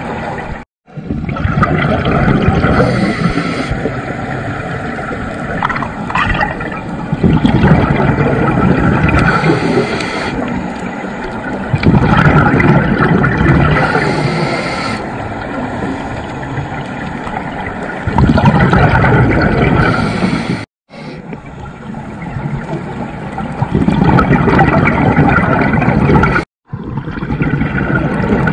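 Underwater sound of scuba regulator breathing: loud bubbling rumbles of exhaled air every five or six seconds, with quieter stretches of inhaled breath between. The sound drops out briefly twice.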